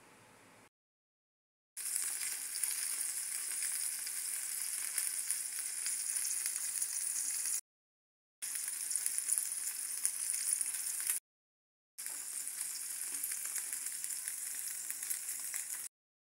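Mackerel pan-frying in hot oil: a steady crackling sizzle, heard in three stretches broken by short silent gaps.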